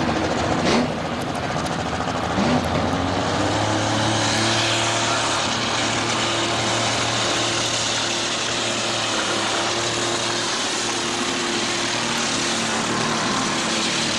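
Pulling tractor's engine running hard at full throttle under load, dragging a weight-transfer sled. Its pitch climbs over the first few seconds, then holds steady, and two sharp bangs come in the first three seconds.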